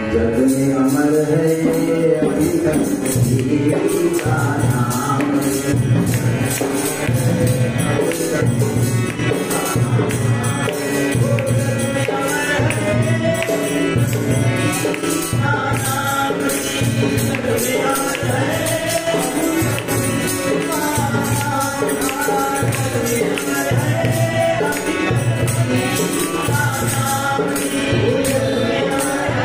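A man singing a devotional bhajan to harmonium accompaniment, with jingling percussion and a steady low beat.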